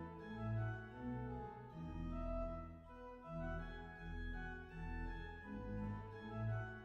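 Background music: sustained organ-like keyboard chords over a bass line, the notes changing about every half second.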